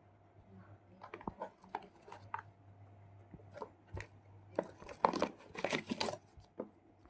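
Hand handling of a boxed alarm clock and its packaging: irregular rustles and sharp clicks, busiest between about four and a half and six seconds in.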